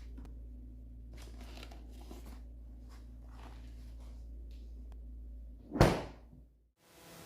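Faint rustling and handling sounds over a steady low hum, then a single loud thunk near the end, like a door or cupboard being shut.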